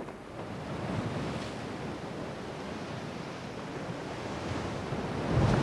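Rough, storm-whipped sea surging and breaking on a rocky shore, with wind. The surf swells about a second in, and a bigger wave crashes near the end.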